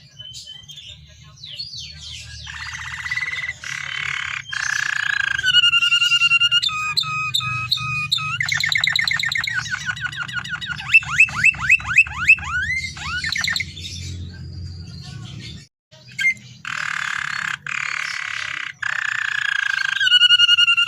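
Domestic canary singing a long, varied song of whistled notes, buzzy trills and a fast run of sweeping notes over a steady low hum.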